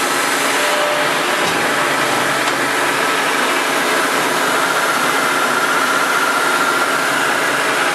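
Acme-Gridley RA6 six-spindle automatic screw machine running under power: a steady mechanical whirr of spindles and slides with a faint whine in it.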